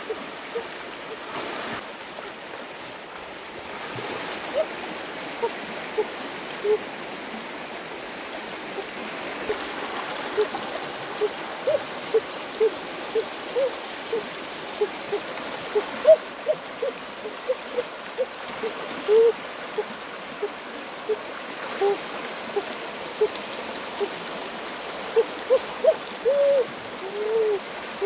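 Shallow river rushing over rocks, a steady wash of running water with many short pitched bloops, one or two a second, as water churns around stones and the hands in the current.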